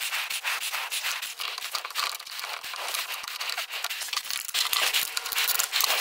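Saw chain being fitted back onto a Stihl chainsaw's guide bar by hand: a continuous clatter of small clicks as the chain links rattle against the bar and sprocket, with light metal scrapes and taps as the parts are handled.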